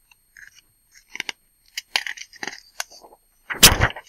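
Sheets of paper being handled and swapped on a desk: a run of light taps and rustles, then one louder sharp swish or slap about three and a half seconds in.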